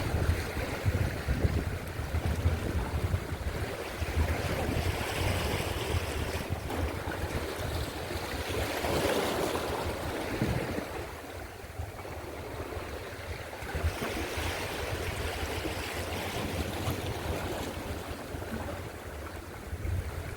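Strong sea wind buffeting the microphone in a heavy, gusty low rumble, with waves washing on the shore and surging louder about nine seconds in and again around fourteen seconds.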